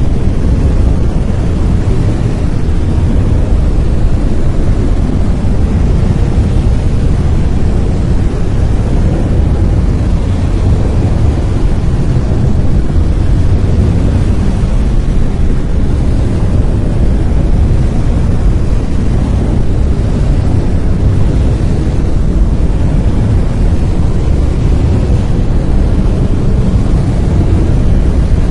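Brown noise: a steady, deep rumbling hiss with most of its weight in the bass, unchanging throughout.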